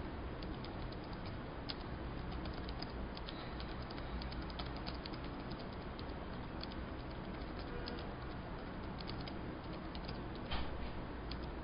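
Typing on a computer keyboard: irregular keystroke clicks over a steady low hum and hiss, with one louder click about ten and a half seconds in.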